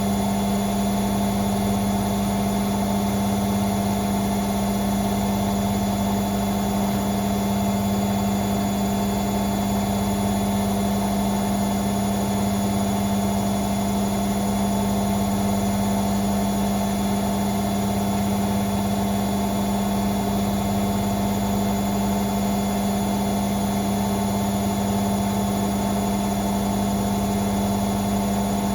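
Hoover Six Sportswear 1300 washing machine on its fast spin programme, its drum spinning at a steady high speed with a constant motor hum and no change in pitch.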